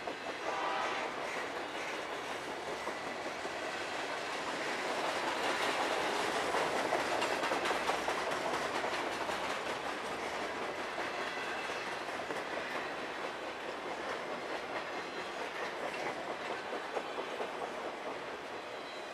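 Freight train of enclosed autorack cars rolling past, steel wheels clicking over the rail joints in a continuous clatter that grows a little louder midway.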